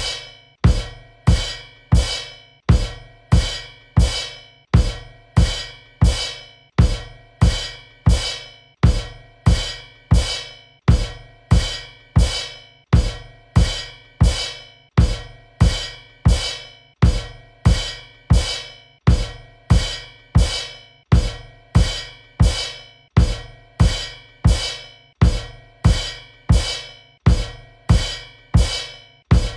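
Cymbal kicks: a bass drum and a cymbal struck together, over and over at an even pace of about one hit every 0.7 seconds. Each hit is a low thump with a bright cymbal wash that dies away before the next.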